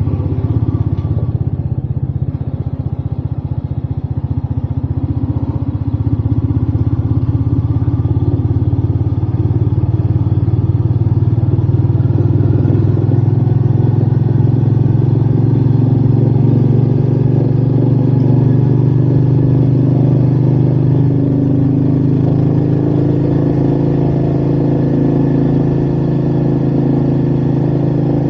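Royal Enfield Meteor 350's single-cylinder engine pulling steadily on the move, mixed with wind noise. It gets a little louder about six seconds in and then holds an even note.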